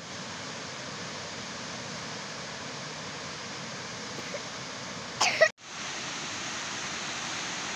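Steady rushing of running water, like a stream or river. A short, loud voice sound, like a cough, comes about five seconds in.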